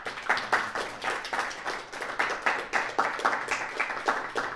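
Audience applauding: a dense, steady run of hand claps.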